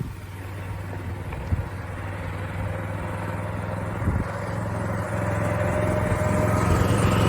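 A motor vehicle approaching: a low engine hum that grows steadily louder, with rising tyre rush toward the end.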